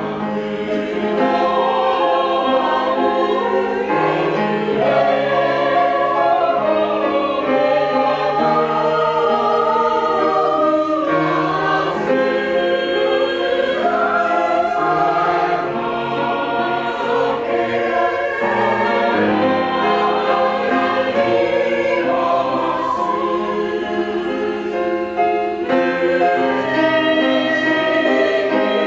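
Choir singing a sustained, legato piece with grand piano accompaniment, the voices moving through held chords without pause.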